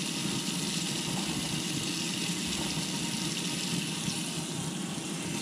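Kitchen faucet running steadily into a stainless steel sink.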